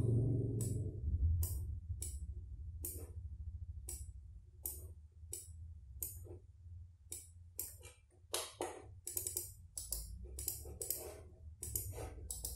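Computer mouse clicking at irregular intervals, sparse at first and coming in quicker bunches in the second half, over a steady low hum.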